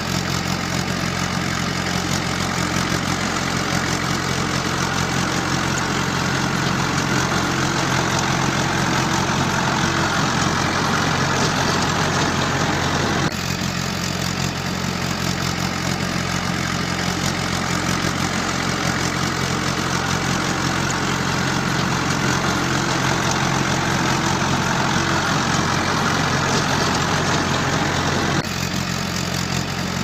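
Vehicle engine idling steadily, a looped sound effect in which the same stretch of recording starts over abruptly about every fifteen seconds.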